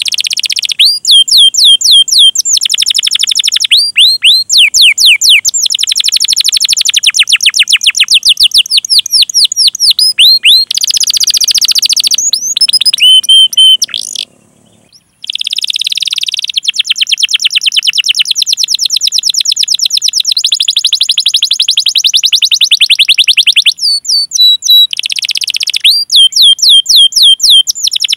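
Domestic canary singing: long runs of rapid, repeated 'cuit cuit' chirps and rolling trills, broken by a short pause about halfway through.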